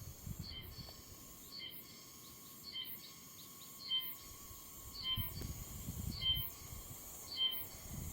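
Oshima cicada (Meimuna oshimensis) starting its song: a short phrase, heard on Kumejima as 'deefun', repeated about once a second and growing stronger.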